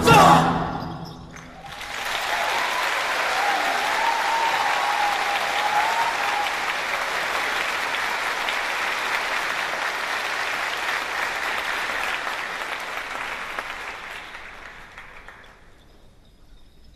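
Steady applause from a crowd that fades out over the last few seconds.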